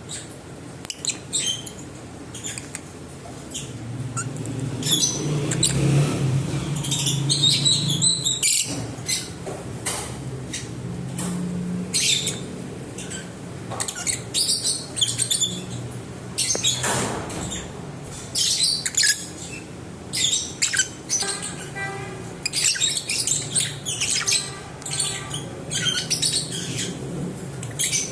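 Lovebirds chirping and squawking in short, sharp, high calls, several birds calling over one another. A low steady hum runs underneath for several seconds in the first half.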